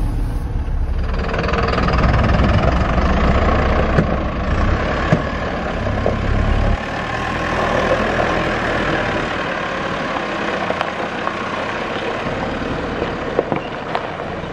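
Mercedes Vario 818 truck's diesel engine running as the truck creeps over loose gravel; the deep low rumble drops away suddenly about seven seconds in.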